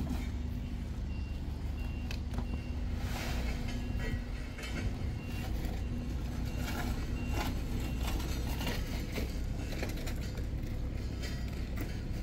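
A construction vehicle's engine running steadily, with a short high beep repeating, typical of a reversing alarm. Rakes scrape over loose hot-mix asphalt now and then.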